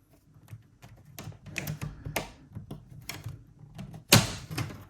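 Plastic clips of a laptop's bottom case clicking and snapping loose as a spudger pries along the seam: a run of small clicks and scrapes, with one loud snap about four seconds in.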